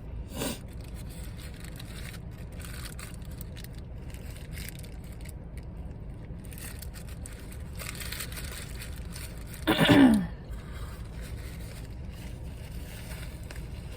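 Quiet eating sounds, faint chewing and small food-wrapper noises, over a steady low background rumble, with one short, loud vocal sound falling in pitch about ten seconds in.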